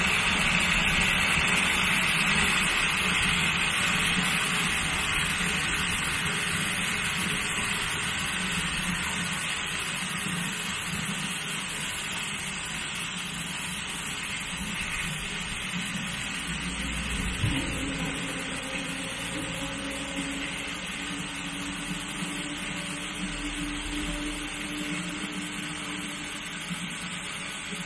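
Water gushing from an open-well submersible pump's delivery pipe into a plastic test drum. The flow gradually quietens as the delivery valve is slowly closed, loading the pump to its working head, with a small knock about two-thirds of the way through.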